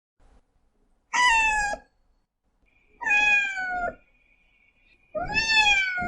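Domestic cat meowing three times, each meow under a second long and sliding down in pitch.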